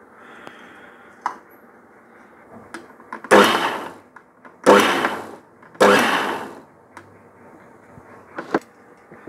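Small electric mixer-grinder (mixie) jar pulsed three times in short bursts of under a second each, coarsely grinding coconut, spices, garlic and curry leaves into a masala. A few small knocks of the jar and lid being handled come before and after.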